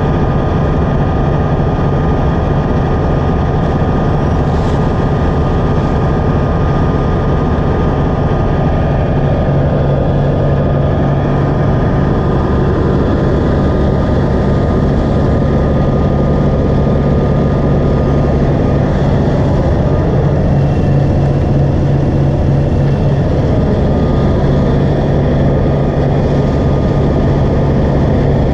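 A large engine running steadily at a constant speed, with an even low hum and rumble and no change in pitch.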